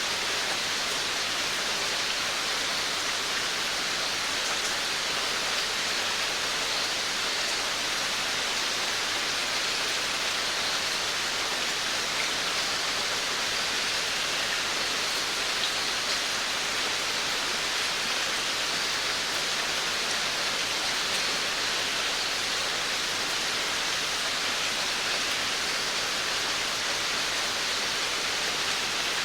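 Steady rain falling on a veranda, an even hiss of drops.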